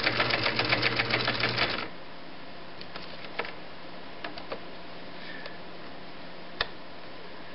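Viking (Husqvarna) Type 21 sewing machine running a triple zigzag stitch: a rapid, even clatter of needle strokes that stops suddenly about two seconds in. Then a few light clicks as its stitch knob and needle-position lever are turned, one sharper click near the end.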